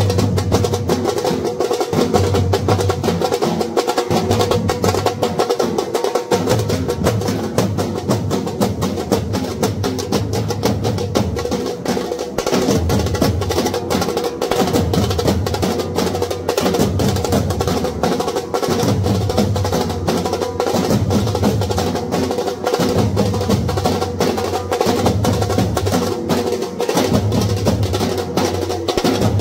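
Drum-led music: fast, dense drumming with a steady held note above it and deep drum beats coming in short runs.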